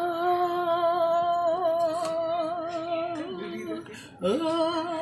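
A woman's voice singing a long held note with a wavering vibrato. It breaks off briefly a little before four seconds in, then takes up a second held note at the same pitch.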